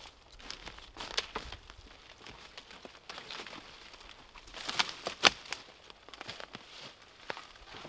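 Irregular rustling and crinkling with scattered sharp clicks and snaps, the loudest a little after five seconds in.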